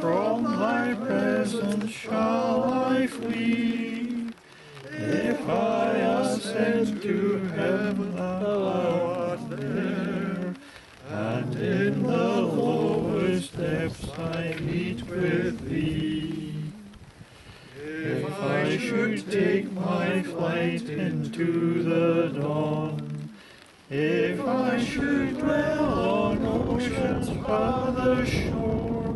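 A congregation singing unaccompanied, in held lines of about five to six seconds with short breaks between them. Wind rumbles on the microphone over the last few seconds.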